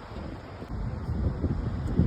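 Wind buffeting the microphone in uneven gusts, a low rumble that swells toward the end.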